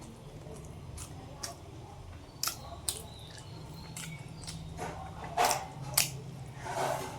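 Close-up eating sounds: chewing and mouth smacks with a few sharp clicks, and a louder burst of munching near the end.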